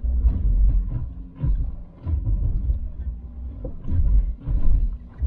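Volkswagen Touareg V6 TDI diesel crawling over a rutted sand track, heard from inside the cabin: an uneven low rumble that surges and drops roughly every second as the vehicle works over the ruts.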